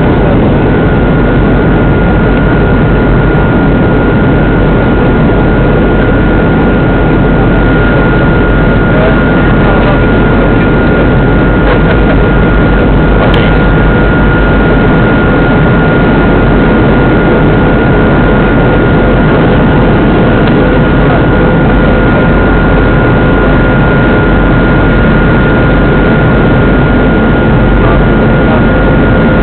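Boeing 737 jet engines heard inside the passenger cabin: a loud, steady rush with a constant high whine running through it.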